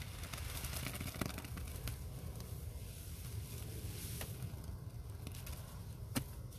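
A soaked sponge squeezed and worked in wet, foamy powder paste: squelching and fine crackling of bursting suds, busiest in the first couple of seconds, with one sharp click about six seconds in. A steady low outdoor rumble runs underneath.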